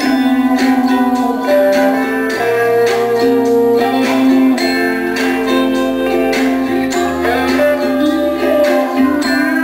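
Music with a steady beat, mostly instrumental.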